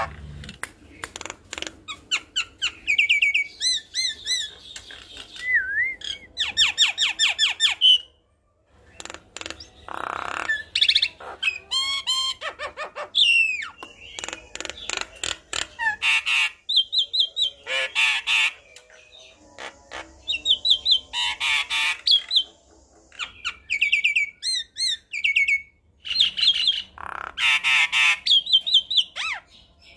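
Javan myna (jalak kebo) singing a long, varied song: runs of rapid repeated notes, gliding whistles and harsh chattering, mixed with sharp clicks. It breaks off briefly twice.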